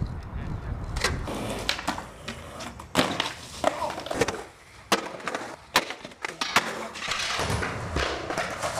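Skateboards being skated: a series of sharp wooden clacks from boards popping and landing, with wheels rolling on hard ground near the end.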